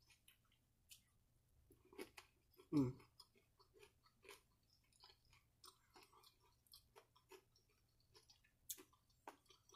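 Quiet close-mic chewing of a mouthful of fried catfish: faint, irregular wet mouth clicks, with one louder low sound about three seconds in.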